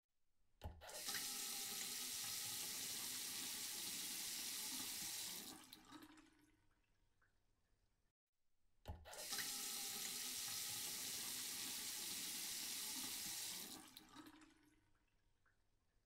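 Toy kitchen sink faucet pressed twice, each press starting with a click and then giving about five seconds of running-water sound that stops on its own. The sink basin stays dry, so the sound is the toy's water sound effect.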